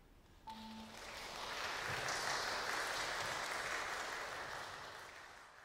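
Audience applauding at the end of a piece: the clapping breaks out suddenly about half a second in, swells, holds, then fades away near the end.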